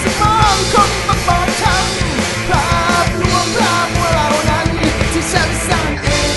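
Punk/grunge rock band recording: dense drums and distorted guitars under a high melodic lead line with bending notes. About six seconds in the drums drop out and a held chord rings on.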